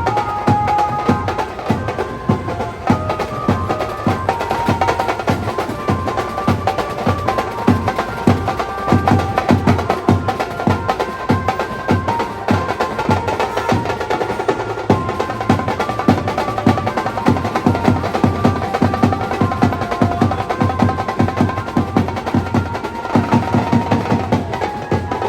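An Indian street banjo party band playing: a banjo melody in short, quick notes over fast, continuous drumming.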